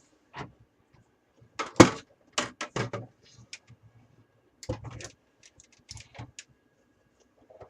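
Irregular clicks and knocks of a PC case door being worked off its hinge pin, with one louder knock about two seconds in and small clusters of clicks after it.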